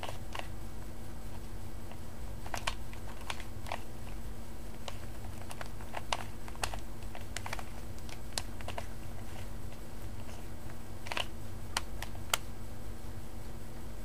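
Plastic Rubik's Cube layers being twisted by hand, with irregular clicks and clacks as the faces snap round. The clicks stop shortly before the end, as the final turns complete the solve. A steady low hum runs underneath.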